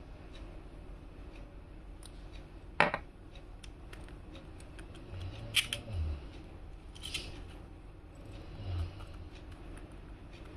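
Small plastic packaging and an earbud case being handled, with one sharp click about three seconds in, a few lighter clicks and soft knocks later, and faint ticking throughout.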